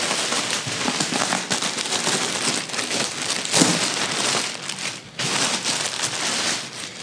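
Clear plastic wrapping crinkling and rustling as it is pulled off a gaming chair's cushion, with a brief lull about five seconds in.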